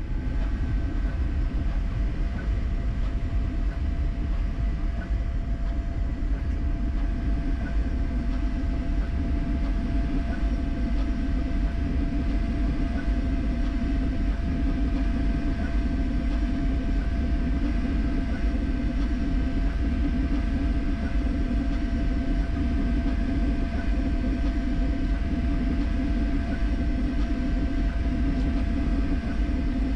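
Creality K1C 3D printer running a high-speed print: a steady rumble from its fans and fast-moving print head, with a thin steady whine over it.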